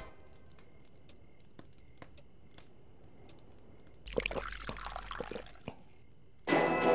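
Milk drunk from a glass, about a second and a half of sipping and gulping sounds after a few quiet seconds. Near the end, music and a voice from a radio programme come in loudly.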